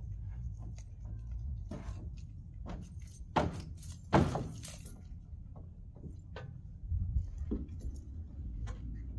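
A series of knocks and clunks over a low steady rumble; the two loudest thuds come about three and a half and four seconds in.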